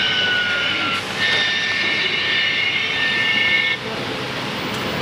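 CNC wood router running: a high whine of several tones over a rushing noise. The whine breaks off briefly about a second in, starts again, and cuts out near the end of the fourth second, leaving the steady rushing noise.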